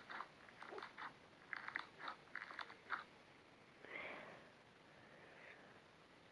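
Slime being squeezed and poked: a quick run of sticky clicks and crackles over the first three seconds, then a soft squelch about four seconds in.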